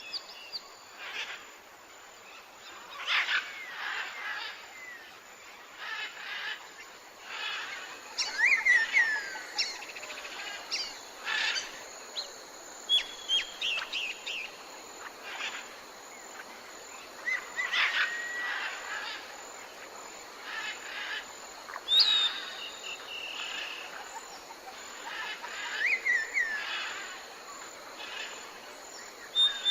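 Forest birds calling: a busy mix of short chirps and whistled notes, some sliding down in pitch, repeating every second or two, over a steady thin high-pitched hum.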